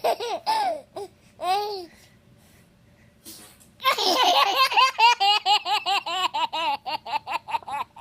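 A young child laughing in a high voice: a few squealing laughs at the start, a pause, then from about halfway a long, quick, rhythmic run of laughter at about six ha's a second that lasts some four seconds.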